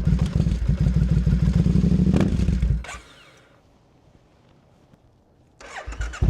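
2012 Triumph Scrambler 900's air-cooled parallel-twin engine running just after a cold start, warming up, with a short rev about two seconds in. The sound then drops away almost to silence for about three seconds, and the engine is heard running again near the end.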